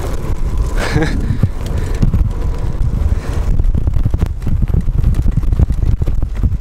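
Wind buffeting the microphone of a camera on a moving bicycle, a loud steady low rumble. From about halfway through, the bike jolts over a dirt track with many quick knocks and rattles.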